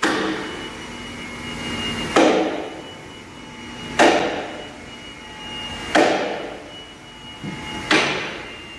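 Heavy hammer blows on a steel excavator pin, struck five times about two seconds apart, each hit ringing on. The pin is being driven into the CAT 390D stick's bushings and is binding, which the mechanic puts down to the bush bores being machined too tight.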